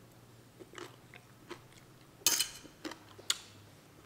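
A person chewing a mouthful of spicy Thai salad with noodles, with soft wet mouth clicks and smacks, a louder smack a little past two seconds in and a sharp click just after three seconds.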